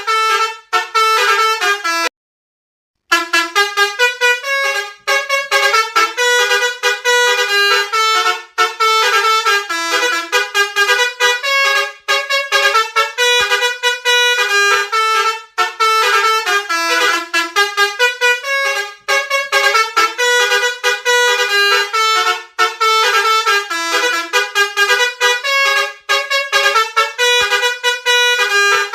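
Basuri telolet bus horn playing a fast tune of short stepped notes, with a break of about a second near the start.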